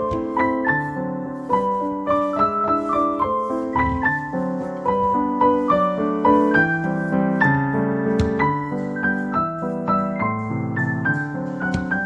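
Background piano music: a gentle run of single notes and chords played steadily.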